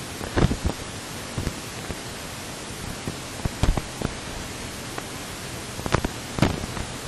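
Steady rushing noise of a Cessna 172's four-cylinder Lycoming engine and propeller, heard from inside the cabin while the plane is on the ground. Several sharp knocks come through it in irregular clusters, the strongest two near the end.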